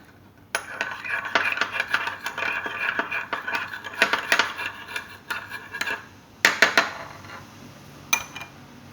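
A metal spoon stirring glue and borax solution as it thickens into slime, clinking and scraping rapidly against the side of the bowl for about six seconds, then a few separate knocks near the end.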